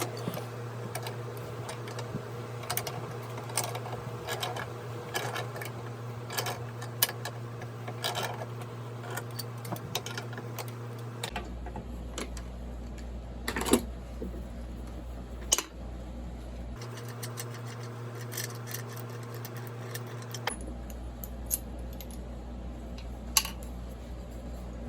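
Tools and small metal parts clicking and clinking as they are handled on a workbench during chainsaw crankcase assembly, with a few sharper knocks, over a steady low hum.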